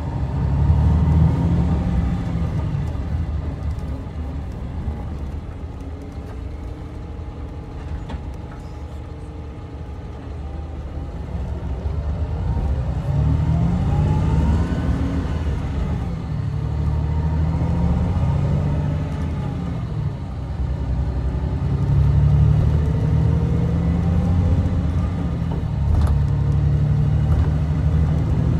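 A coach's diesel engine and road noise heard from inside the passenger cabin. The engine runs quieter for several seconds, then its pitch rises a few times as the coach accelerates and drives on at a louder, steady level.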